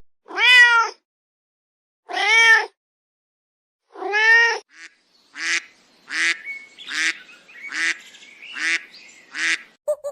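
A large bird calling: three long, pitched calls that rise and fall, about two seconds apart, then a run of six shorter calls at a quicker pace.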